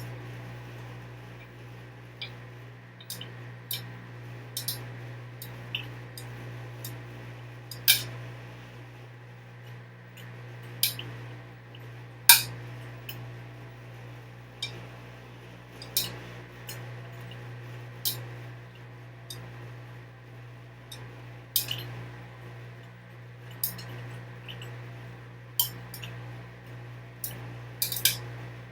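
Washing machine on its first rinse: a steady low hum with sharp clinks every second or two.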